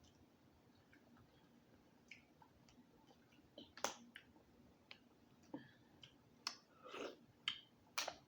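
Wet eating sounds from a messy seafood boil and fufu eaten by hand: after a near-silent start, about seven short, sharp smacks and clicks over the last few seconds.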